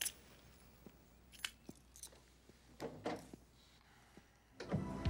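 Quiet room tone with a few short, faint clicks and rustles. Near the end a louder, noisy sound with music cuts in suddenly.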